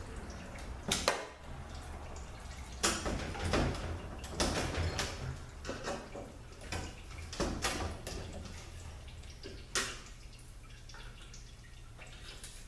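Irregular knocks and clicks, about ten in all, from parts being handled and taken off an automatic transaxle during a teardown. A low steady hum sits underneath.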